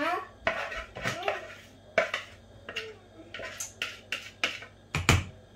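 Chocolate cake batter being scraped and knocked out of a mixing bowl into a springform cake pan: a run of short scrapes and taps, roughly one or two a second.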